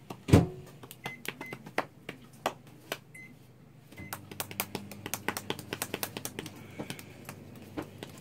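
Microwave oven being set and started: a thud just after the start, a few short high keypad beeps, then from about four seconds a steady low hum as the oven runs, with sharp clicks scattered throughout.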